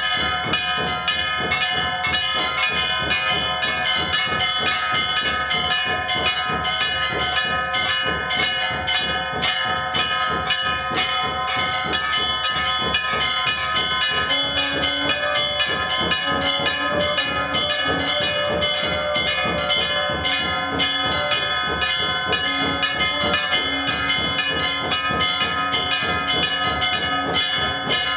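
Temple bells rung rapidly and without pause, their ringing overlapping in a dense clangour. From about halfway through, a lower held tone comes and goes alongside them.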